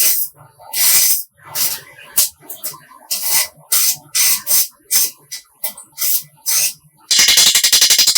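Restoration work on motorcycle parts: a run of short, irregular hissing strokes, each under half a second. Music comes in about seven seconds in.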